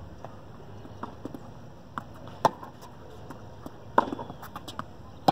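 Tennis ball being struck by rackets and bouncing on a hard court during a baseline rally: a series of sharp pops about a second apart, the loudest ones about halfway in, at about four seconds and at the very end.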